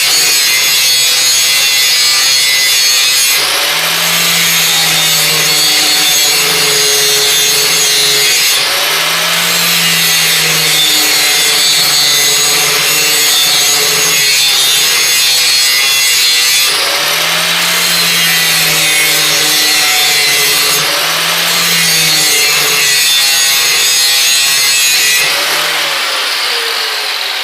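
Electric grinder running against the steel of a brush hog (rotary mower) blade: a continuous abrasive grinding with the motor's pitch dipping and rising as it is worked back and forth along the bevel in sharpening passes. Near the end the grinding eases off.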